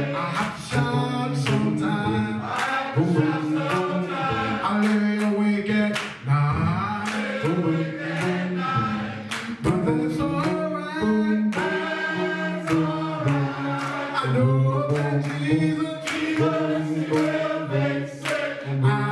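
Men's gospel choir singing, many voices holding and moving through sustained notes together.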